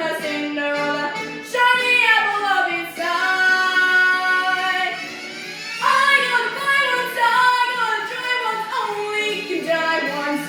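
A young girl singing a show tune over instrumental accompaniment, holding one long note about three seconds in.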